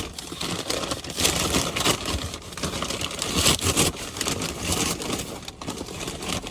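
Takeout packaging being opened by hand: a plastic bag and food container rustling and crinkling, with many small crackles and scrapes.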